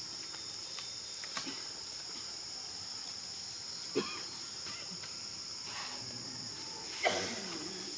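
A steady, high-pitched insect chorus drones throughout. It is broken by a few brief sounds, a sharp one about halfway through and the loudest, a short wavering call, near the end.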